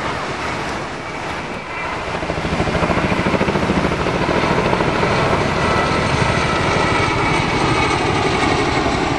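Boeing CH-47 Chinook's tandem twin rotors passing: a fast, even rotor-blade beat over engine noise, louder from about two seconds in.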